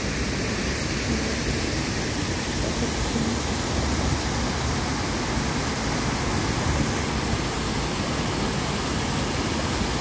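Artificial waterfall pouring over rock into a pond: a steady rush of falling water.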